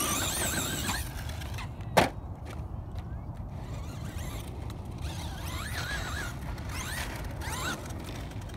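Brushless electric motor of a Traxxas Slash 2WD RC monster truck whining, its pitch swinging up and down with the throttle as it drives over dirt jumps. A single sharp thump about two seconds in is the loudest sound.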